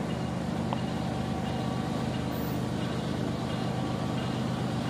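Steady low engine drone of an approaching diesel locomotive, the level holding even.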